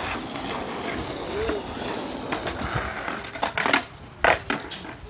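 Skateboard wheels rolling on concrete with a steady grinding rumble, then several sharp clacks of the board hitting the concrete about three and a half to four and a half seconds in.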